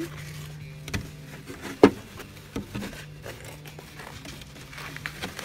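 Rubber-backed artificial grass mat being peeled up and handled inside a wooden nesting box: scraping and rustling, with a few knocks against the wood, the sharpest about two seconds in. A steady low hum runs underneath.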